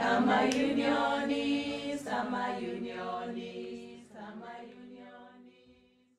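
A cappella choir singing sustained chords, with new phrases entering several times, fading out to near silence toward the end.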